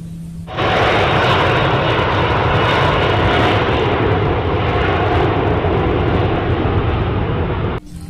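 Twin-engine jet airliner coming in low to land, its engines making a steady rush of noise that starts suddenly about half a second in and cuts off just before the end.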